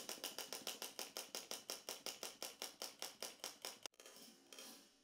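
Wind-up chattering-teeth toy clacking its jaws, a fast, even rattle of about seven clacks a second that stops abruptly about four seconds in. A fainter, softer sound with a few steady pitches follows.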